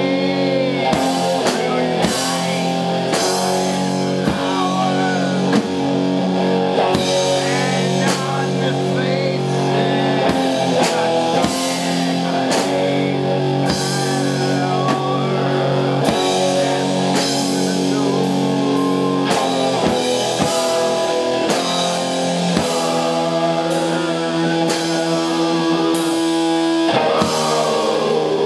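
Live rock music: an electric guitar played through an amp over a drum kit, with steady drum hits and cymbal crashes and sustained guitar chords that change every few seconds.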